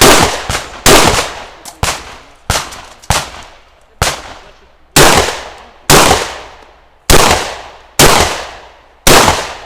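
Shotgun fired in a steady string of about eleven shots, roughly one a second, each a sharp blast with an echo trailing off behind it. A few fainter cracks fall between the first shots.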